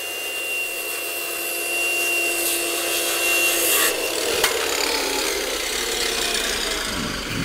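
Handheld circular saw crosscutting a wooden board. Its motor and blade give a steady whine for about the first four seconds. A sharp knock comes at about four and a half seconds as the cut ends, and the sawing noise then fades near the end.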